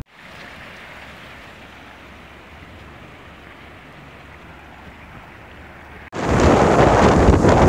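Steady, even rushing noise that cuts off abruptly about six seconds in, replaced by a much louder, rougher rushing noise with wind buffeting the microphone.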